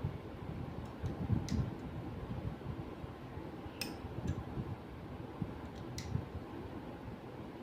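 Hand work with a screwdriver on a laser printer's motor and chassis: low handling bumps and rubbing, with about four sharp, light clicks of small parts or screws.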